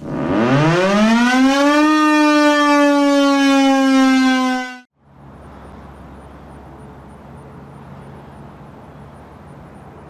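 Sentry 10V outdoor warning siren winding up: its pitch rises steeply for about two seconds, then holds with a slight fall, and the sound cuts off abruptly about halfway through. A much quieter steady outdoor background with a faint low hum follows.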